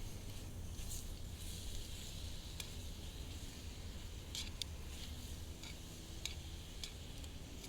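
Food frying in a pan on a butane camp stove: a soft sizzle with scattered sharp crackling pops, over a steady low rumble.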